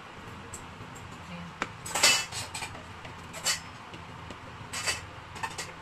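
Kitchenware clinking and knocking against a cooking pot as glutinous rice is stirred in broth: a handful of separate clatters, the loudest about two seconds in.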